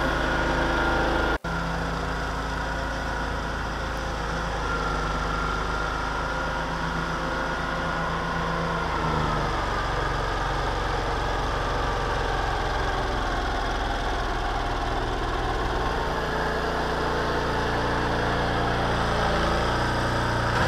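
Small engine of a homemade mini tractor running steadily while driving a rotary snowblower. There is a sudden short break about a second and a half in, and the engine's note shifts a little about nine seconds in.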